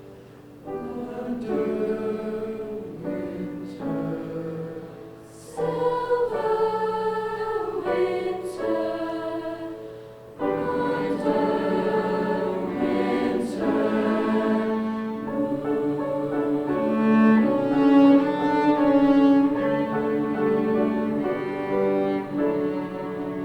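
High school choir singing a Christmas piece, with bowed string accompaniment, in phrases that restart about five and ten seconds in.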